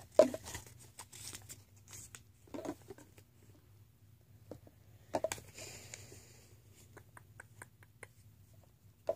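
Scattered handling noise close to a phone microphone: light taps, clicks and rustles of paper and small objects being handled, with a sharp tap just after the start, soft knocks about two and a half and five seconds in, and a run of small ticks near the end.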